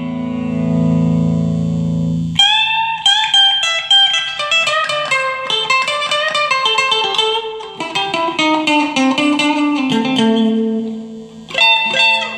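Electric guitar, a Chinese copy of a Fender Stratocaster, played through an amplifier and picked up by a phone microphone. A held chord rings for about two seconds, then a fast single-note lead run works its way down in pitch, and a chord is struck near the end. The notes sound clean, with no fret buzz.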